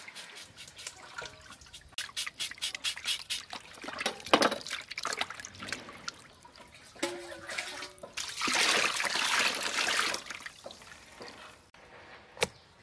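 A whole fish being cleaned over a metal basin of water. There are quick scraping strokes of a knife on the fish, then water sloshing and splashing as it is washed by hand, loudest for a couple of seconds past the middle. A single sharp tap comes near the end.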